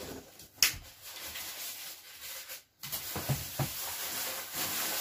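Hands working a metal hinge on a particleboard table panel: a sharp click about half a second in, then a couple of light knocks and faint handling noise.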